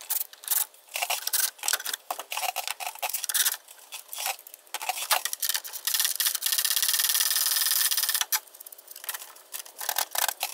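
Ratchet wrench clicking as it works a bolt loose on the engine's intake tube, with scattered clicks and clatter of parts being handled. About six seconds in comes a steady run of very fast clicking lasting nearly two seconds.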